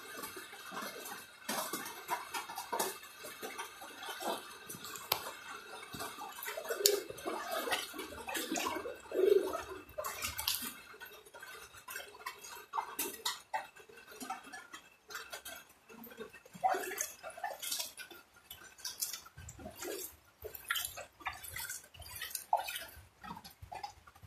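Irregular small splashes and drips of water, with scattered sharp clicks and knocks.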